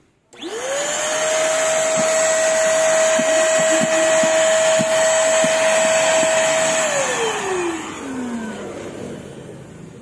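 Handheld vacuum cleaner switched on, its motor whine climbing quickly to a steady high pitch, with a few light ticks as it picks up paper scraps. About seven seconds in it is switched off and the whine slides down as the motor spins down.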